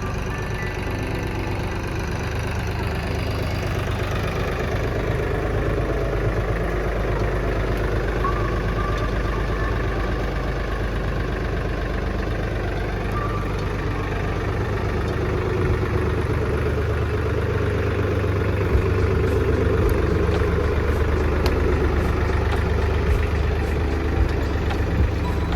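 Tractor engine running steadily while pulling a potato digger, getting a little louder about two-thirds of the way through, with short rattling clicks near the end.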